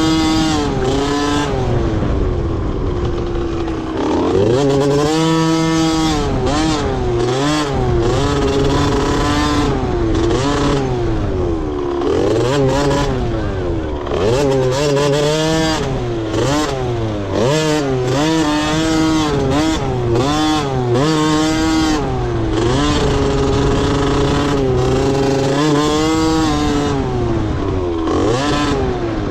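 Motocross dirt bike engines revving up and down again and again, their pitch rising and falling every second or two, over a steadier lower engine note.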